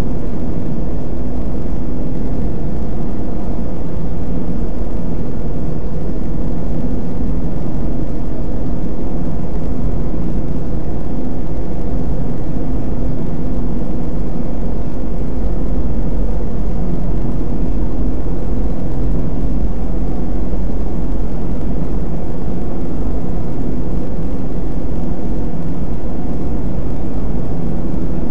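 Several front-loading washing machines running a wash cycle, their sounds layered into one loud, steady, low drone with a constant hum.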